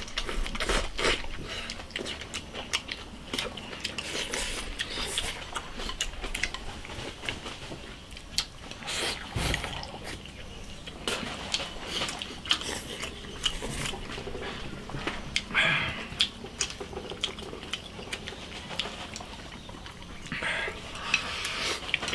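Two people eating with chopsticks from bowls: chewing and slurping stewed fish and rice, with scattered sharp clicks of chopsticks against the bowls.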